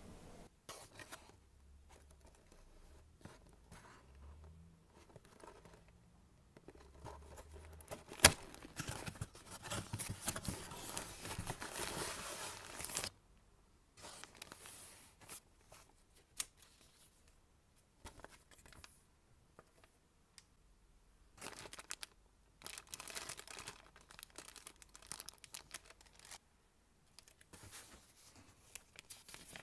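Hands unpacking a plastic model kit: a sharp snap about eight seconds in, then about five seconds of continuous tearing and crinkling of packaging, followed by short, scattered rustles of paper sheets and a plastic bag being handled.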